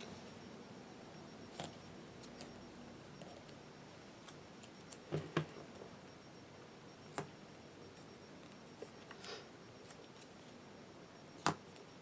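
Paper stickers being peeled from their sheet and pressed onto planner pages: faint rustles and scattered light taps and clicks, the sharpest a pair about five seconds in and one near the end.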